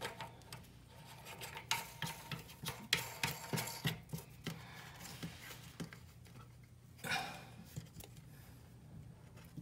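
Toilet fill valve's lock nut being screwed by hand onto the valve's threaded shank under the tank: irregular small clicks, scrapes and rubbing, busiest about three to four seconds in, with a brief rustle near the end.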